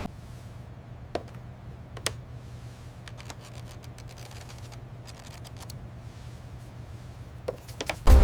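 Sparse light clicks and taps, irregularly spaced, over a faint steady low hum, with a louder knock just before the end.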